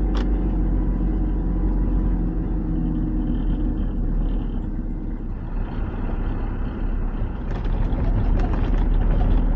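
Mercedes Vario 818 truck's diesel engine running under way on a gravel track, heard from inside the cab as a steady low rumble with tyre and road noise. A spell of clattering knocks and rattles comes near the end.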